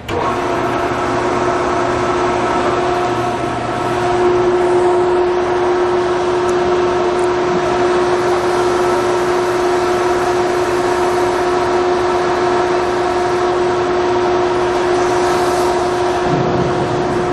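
Readco twin-shaft continuous mixer running: its electric drive motor and gear reducer turning the stainless steel twin-shaft agitators, with a steady mechanical whine. It cuts in abruptly and grows a little louder about four seconds in.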